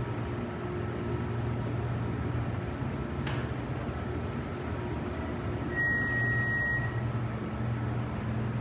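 MEI hydraulic elevator ascending, heard from inside the cab as a steady low hum of its pump motor. A single electronic beep lasting about a second sounds about six seconds in.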